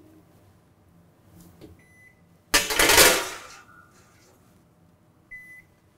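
Wolf convection wall oven's control panel giving two short electronic beeps, one about two seconds in and one near the end. Between them, a loud scraping rush about a second long as the metal sheet pan is slid back into the oven.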